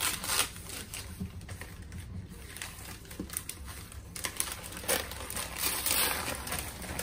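Christmas wrapping paper crinkling and tearing as hands unwrap a flat present, in irregular rustles and short rips that get busier about four seconds in.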